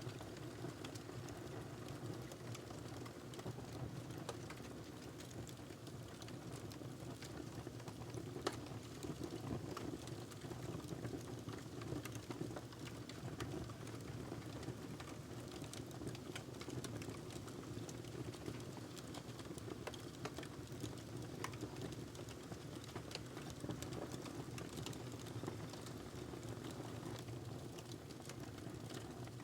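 Wood fire crackling in a fireplace: irregular sharp snaps and pops scattered over a steady low rush of burning.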